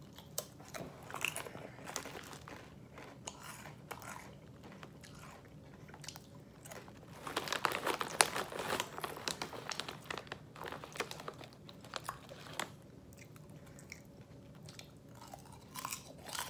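Crunchy potato chips being bitten and chewed, a run of sharp crackly crunches. About halfway through, the chip bag crinkles loudly as it is handled.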